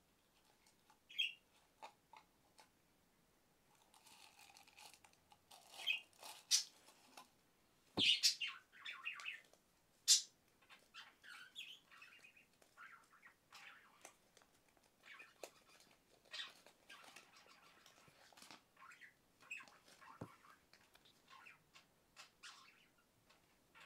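Plastic toy packaging being handled and opened: irregular rustling and crinkling with short squeaks and a few sharp clicks, the loudest about eight and ten seconds in.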